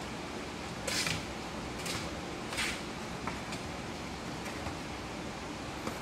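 A kitten's claws scratching at a cardboard box in a few short scrapes, the loudest about a second in, over a steady hiss.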